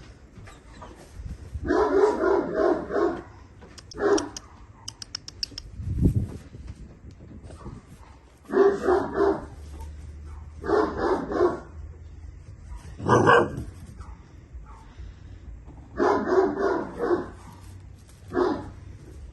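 Alabai (Central Asian Shepherd) puppies barking in short volleys of several quick barks, one volley every couple of seconds. There is a low thump about six seconds in.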